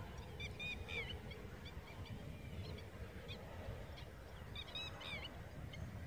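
Waterbirds calling: a quick cluster of short, high, downward-curving notes about half a second in and another just before the fifth second, with scattered single calls between, over a steady low rumble of wind on the microphone.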